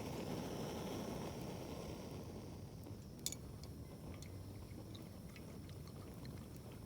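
Wood fire burning with a low, steady hiss and scattered small crackles, and one sharp pop a little over three seconds in.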